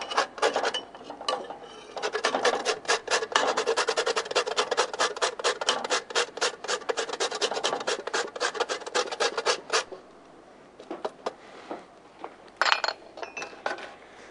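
Whole nutmeg grated on a metal hand grater: quick, even scraping strokes from about two seconds in until about ten seconds in, followed by a few light taps and one short scrape near the end.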